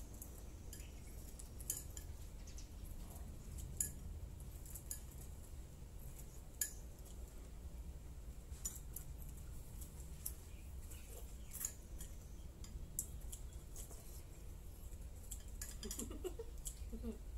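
Metal spoon clinking and scraping against a bowl as someone eats soup. Sharp, irregular clinks come every second or two, a few of them louder, over a low steady rumble.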